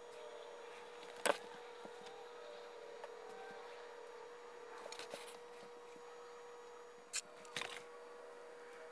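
Workshop handling noises: a handful of sharp clicks and knocks, the loudest about a second in and two more near the end, over a steady faint hum.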